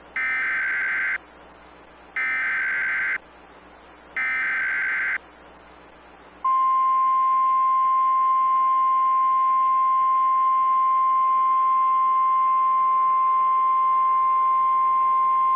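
Emergency Alert System SAME header: three bursts of digital data tones, each about a second long and a second apart, carrying the coded alert message. About six seconds in, a single steady NOAA Weather Radio 1050 Hz alert tone starts and holds.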